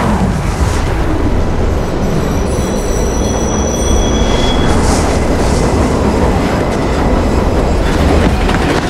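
Subway train running through a tunnel, a heavy steady rumble. Its wheels squeal in several high, steady tones from about two to four seconds in.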